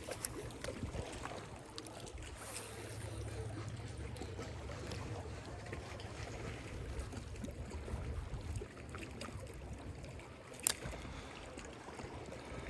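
Faint outdoor noise with a low hum lasting several seconds, scattered small clicks, and one sharp click about two seconds before the end.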